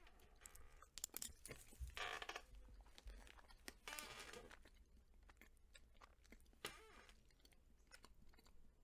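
Faint chewing and wet mouth sounds, with scattered soft clicks: a person slowly eating a milk chocolate Hershey's Kiss with a soft marshmallow cream filling.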